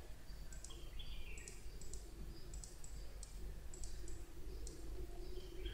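Computer mouse buttons clicking: a dozen or so light clicks at an irregular, quick pace, over a faint steady hum.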